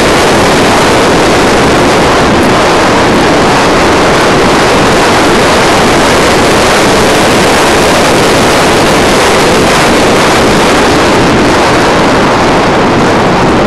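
Loud, steady rush of air buffeting the microphone of a camera carried on a fast, low-flying craft, with no clear motor tone.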